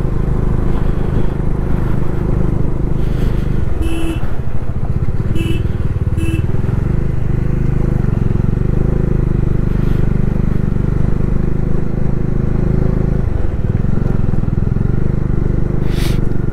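Bajaj Dominar 400's single-cylinder engine running steadily while riding, with three short beeps about four to six seconds in.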